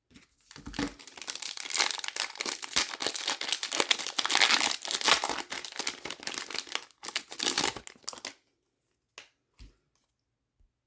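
A hockey card pack's wrapper being torn open and crinkled: dense crackling and rustling for about eight seconds that then stops, followed by a couple of faint taps.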